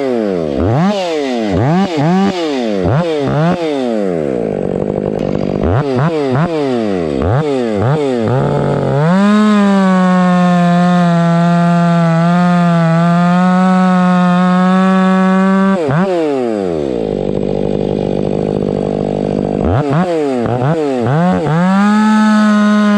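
Stihl 500i fuel-injected two-stroke chainsaw: the throttle is blipped again and again, then held at full revs for about seven seconds with slight dips as it cuts firewood. It drops back to a low idle, then revs up and holds high again near the end.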